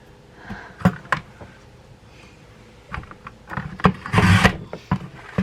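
A French fry cutter and potatoes being handled on a kitchen counter: a couple of sharp knocks about a second in, then a short, loud grinding burst about four seconds in as a potato is pushed through the cutter.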